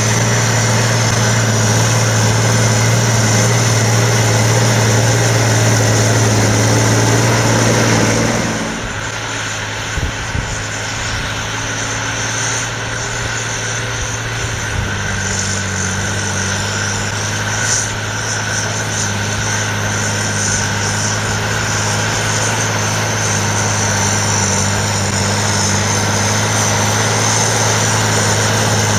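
John Deere 8420 tractor's six-cylinder diesel, chip-tuned to about 300 hp, running steadily under heavy load while it pulls a Horsch Tiger cultivator at full working depth up a slope. The sound drops a little about a third of the way through, there are a few knocks soon after, and the engine note shifts about halfway.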